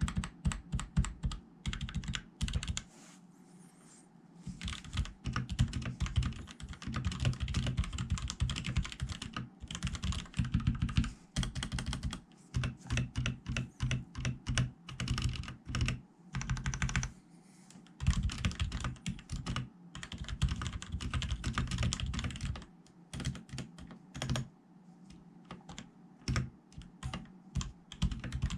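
Typing on a Drevo Calibur V2 Pro mechanical keyboard with red linear switches, lubed and fitted with O-rings: fast runs of keystrokes with short pauses between them, and no spring ping.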